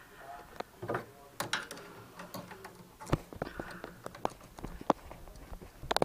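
Scattered light clicks and knocks of hands handling parts and tools, with faint murmured speech underneath.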